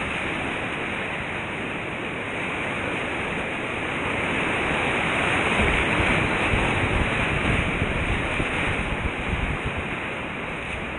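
Whitewater rapids rushing and splashing right around a kayak as it runs a rapid, heard from the boat itself; the rush swells louder about halfway through and eases near the end.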